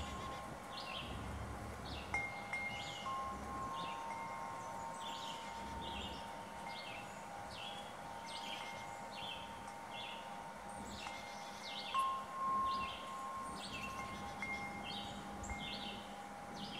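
Wind chimes ringing in the breeze, with long ringing tones. They are struck afresh about two seconds in and again near twelve seconds. Short high chirps repeat steadily behind them.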